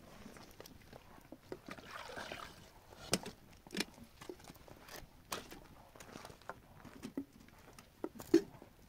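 Water poured from a plastic jug into a metal kettle for about a second, followed by scattered sharp clinks and knocks of metal kettles and a teapot being handled. The loudest knock comes near the end.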